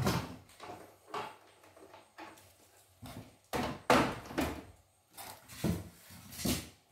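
Packing pieces and parts being lifted out of a cardboard box and set down: irregular rustling, scraping and knocks against cardboard, in uneven bursts with short pauses.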